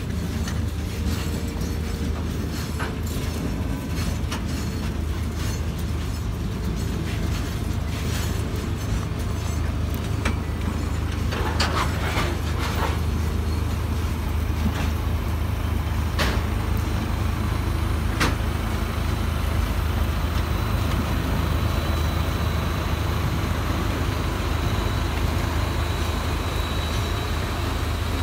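Loaded grain hopper wagons of a freight train rolling past, with wheel clacks and knocks over the rails and a steady low drone. The drone is from a VR Class Dv12 diesel locomotive, which grows louder as the locomotive draws near at the end. A thin high whine sets in over the last several seconds.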